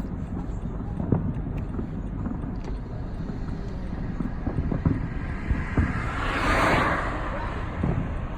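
Fireworks thudding at a distance, a few separate booms over a steady rumble of wind on the microphone, with a short hissing swell about six seconds in.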